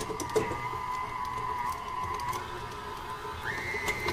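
KitchenAid stand mixer switched on and running with its paddle attachment, beating cold butter to soften it: a steady motor whine that steps higher about three and a half seconds in.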